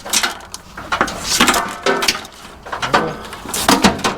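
Irregular knocks, clanks and scrapes of hand tools and metal parts being handled, several every second.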